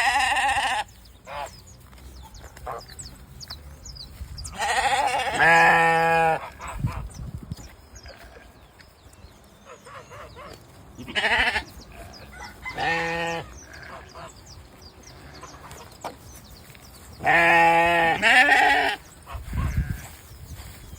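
An animal calling again and again: five wavering, bleat-like calls, the longest about two seconds each, with pauses between.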